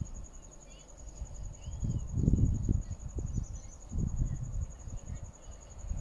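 Insects trilling steadily in a high, finely pulsed tone, with wind gusting on the microphone about two, four and six seconds in, and a faint bird chirp.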